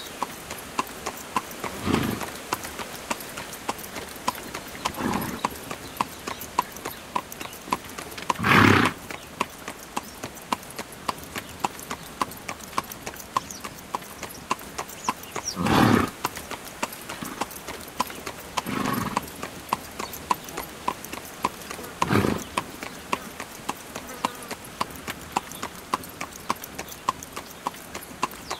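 A carriage horse's hooves clip-clopping on an asphalt road in a quick, even rhythm as it pulls the carriage. A few short, louder noises break in at intervals, the strongest about a third and halfway through.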